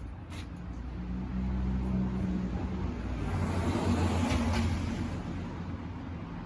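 A motor vehicle with a low engine hum; its noise swells to a peak about four seconds in and then fades, as when passing by.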